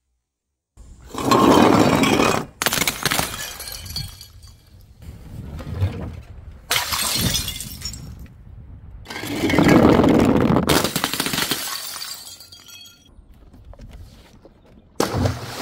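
Glass bottles shattering in a series of about six loud crashes, each trailing off into the rattle and tinkle of falling shards, with faint high ringing from the glass after some of them.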